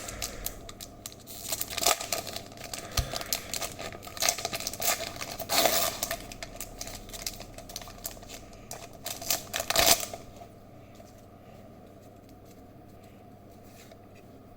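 Foil Pokémon booster pack wrapper crinkling and tearing open in rustling bursts, stopping about ten seconds in.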